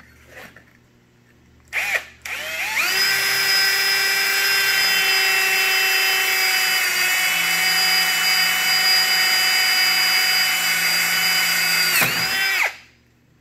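Ridgid power drill blipped briefly, then run steadily for about nine seconds, drilling the locking-pin hole through a brass axle bushing. Its motor whine winds down and stops near the end.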